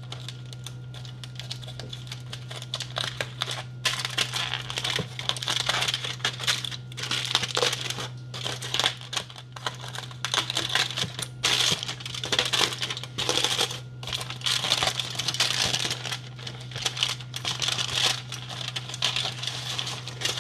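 Aluminium foil and parchment paper crinkling and rustling as hands unwrap a foil parcel, the crackling getting busier and louder about four seconds in. A steady low hum runs underneath.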